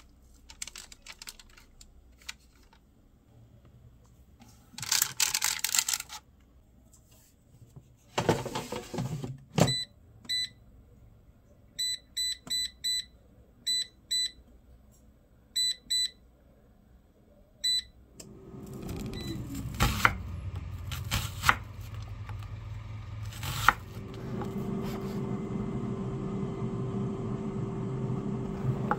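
Electroman air fryer being loaded and started: rustling of the paper liner and a clatter as the basket is pushed home, then a series of short touch-panel beeps while it is set. About eighteen seconds in, its fan starts and runs with a steady hum.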